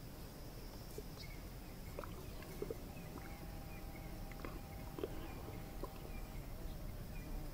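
Elephants drinking at a waterhole: a few soft splashes and drips from their trunks, about two to six seconds in, over steady insect buzzing.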